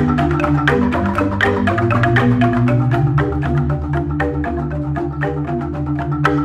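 Jegog ensemble of Balinese bamboo-tube xylophones playing a fast, dense piece: rapid mallet strikes on the bamboo keys over low, held bass notes.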